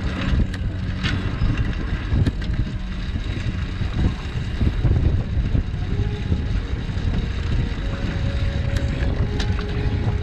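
Wind buffeting the microphone on a moving long john cargo bike, with steady road rumble and a few light clicks and rattles from the bike.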